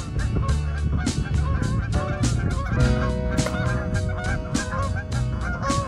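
Geese honking repeatedly as they fly low over the water, over background music with a steady beat.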